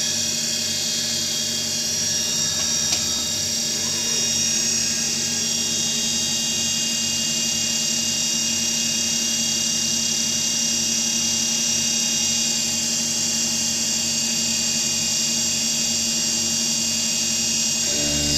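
Milling machine cutting metal with a dynamic milling toolpath: a steady high spindle and cutter whine over a low pulse repeating about two to three times a second, with one sharp click about three seconds in.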